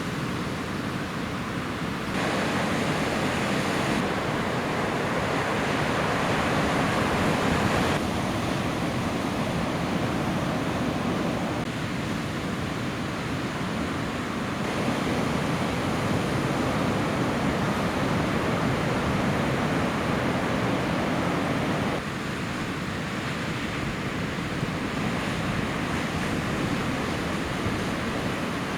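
Ocean surf washing steadily, with wind noise on the microphone. The level and tone of the noise change abruptly several times.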